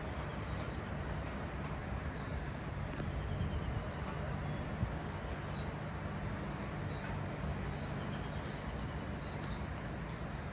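Steady outdoor hiss with a constant low hum underneath, and faint bird chirps every few seconds.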